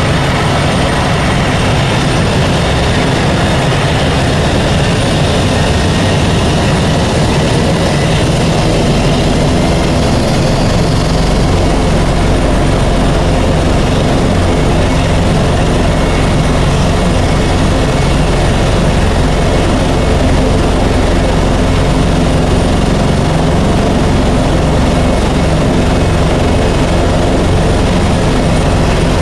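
Helicopter running, a loud, steady drone of engine and rotor with a thin high whine above it.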